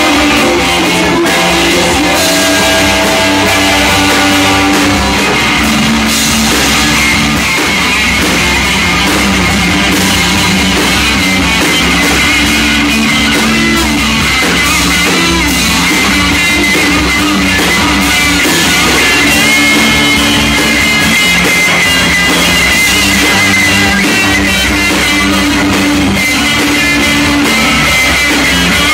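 Live rock band playing loudly and without a break: electric guitars over a drum kit.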